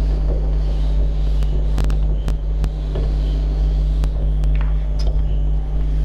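Blackboard duster wiping chalk off a chalkboard, with short scrapes and knocks now and then. A steady low hum runs under it and is the loudest thing.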